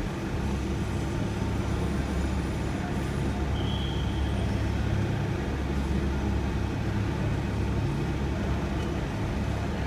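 Shuttle van driving, a steady low rumble of engine and road noise heard from inside the cabin. A short, high beep sounds about four seconds in.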